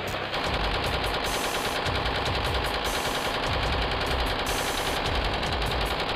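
Rapid automatic gunfire, machine guns firing in long sustained bursts: the sound of a firefight.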